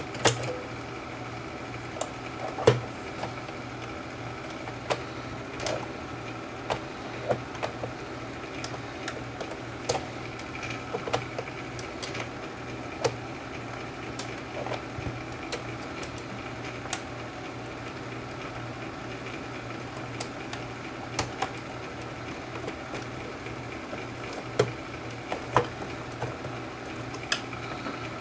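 Scattered small metal clicks and taps of hand tools working on a reel-to-reel tape deck's transport mechanism, over a steady low mechanical hum.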